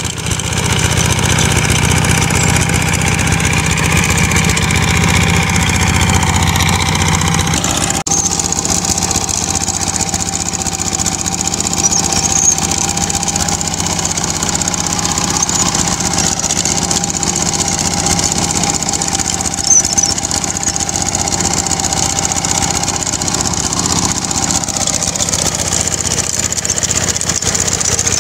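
Kubota K75 hand tractor's single-cylinder diesel engine running steadily under load while its rotary tiller churns dry soil, with a steady whine over the engine note and a couple of brief knocks partway through.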